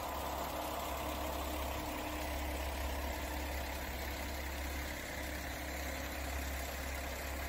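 KiHa 40-series diesel railcar's engine idling with a steady low rumble.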